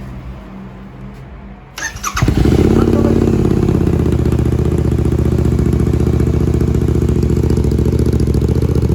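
Royal Enfield Continental GT 650's 648 cc parallel-twin engine starting on freshly fitted Offtrail Moto slip-on exhausts. It catches about two seconds in after a quieter low hum, then settles into a loud, steady, rhythmic idle.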